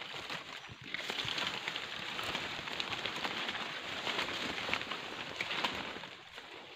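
Footsteps through dry leaf litter and undergrowth: a dense crackling rustle of dry leaves and twigs that eases off near the end.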